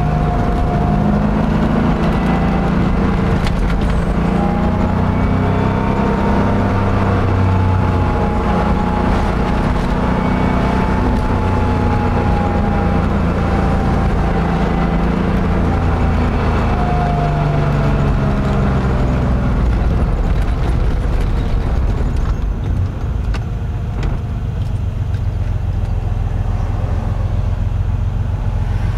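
Porsche 911 flat-six engine under way, heard from inside the car: its note rises and falls as it pulls and shifts, then settles to a lower, steadier drone in the last third.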